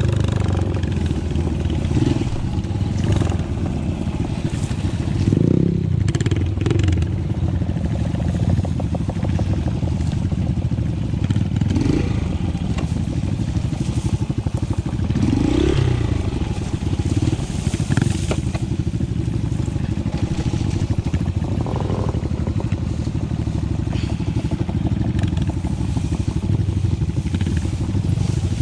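A mountain bike riding a rough trail: a steady low rush of wind on the microphone, with the bike clattering and rattling over bumps.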